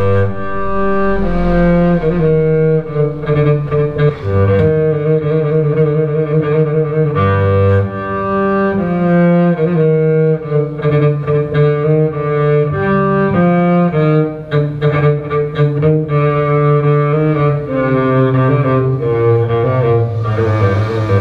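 Recorded music played back over a hi-fi system: low bowed strings holding sustained notes that change every second or so. It starts abruptly out of silence.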